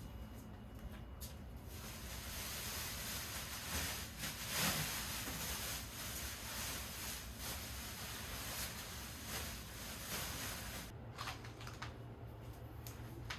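Faint, steady background noise with a few soft rustles and clicks.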